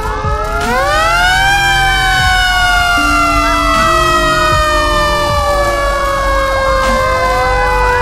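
Emergency vehicle sirens wailing: one siren rises steeply in pitch about a second in and then slowly falls, while others wail up and down over it.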